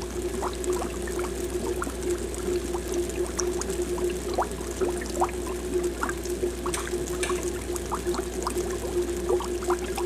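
Aquarium air bubbles rising and breaking at the water surface: a continuous watery bubbling with many small quick pops, over a steady hum.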